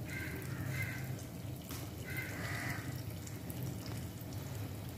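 Vegetable Manchurian balls sizzling steadily as they deep-fry in a kadai of hot oil.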